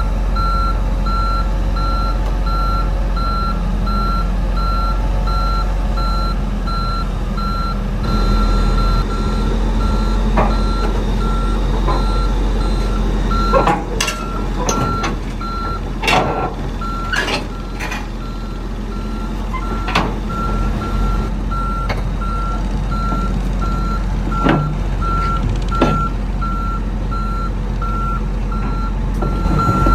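Heavy earthmoving machine's reversing alarm beeping at a steady, even rate over a diesel engine running, with a series of sharp clanks and knocks in the middle.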